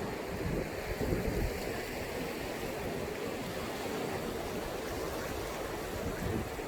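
Sea surf washing on the shore: a continuous rush of breaking waves with no single crash standing out.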